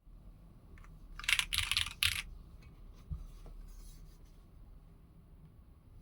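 Foamless Tech Bear 8-TKL mechanical keyboard with an aluminium plate and Strawberry Jelly v2 switches being typed on: three loud clattering bursts a little over a second in, then scattered fainter key clicks.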